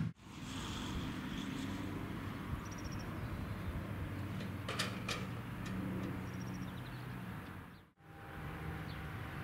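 Open-air background: a steady low hum of distant engine noise, with a few short high bird chirps.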